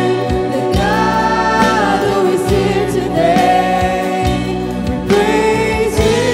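Live worship band performing a praise song: lead singers' held, amplified sung lines over electric guitars, acoustic guitar and bass guitar, with a steady beat.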